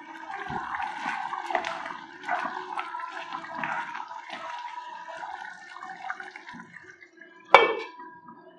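Thick curry gravy bubbling and spluttering in a pan while a wooden spatula stirs it with wet, squelching sounds. Near the end, a glass pan lid is set down on the pan with one sharp, ringing clink.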